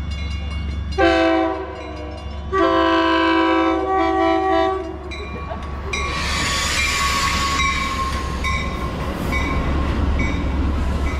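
Metra bilevel commuter train sounding its horn, a short blast and then a long one, as it approaches a grade crossing. The train then rolls in along the platform with a rushing of wheels, a steady squeal and a bell ringing about twice a second.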